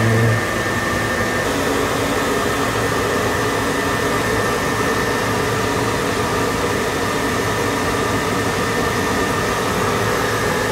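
Steady mechanical hum and hiss inside a deep-diving submersible's cabin, with a few faint steady tones over it.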